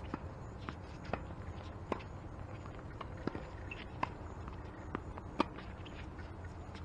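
Tennis ball being hit back and forth with racquets and bouncing on a hard court during a doubles rally: a string of sharp, short pops spaced irregularly, roughly every half second to a second, with a steady outdoor background.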